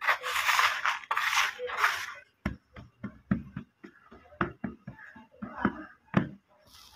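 Hands swishing and rubbing through dry powdered brick dust in a tub for about two seconds, then a quick, irregular run of soft pats and taps as the palms press and slap into the dust.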